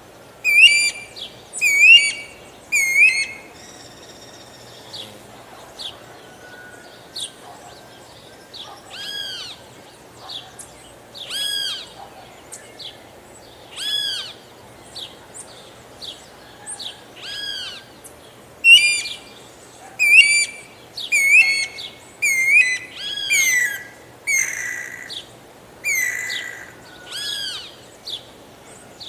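Guira cuckoo calling: a long series of short, arched whistled notes, one every second or two, louder at the start and again through the second half.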